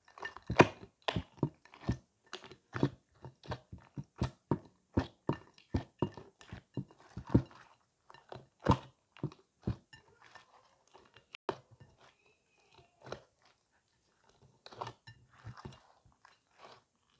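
Glittery slime with foam beads being kneaded and squeezed by hand, giving a run of sharp, wet clicks and pops as air pockets burst. There are about two or three a second for the first half, then the pops come fewer and farther apart.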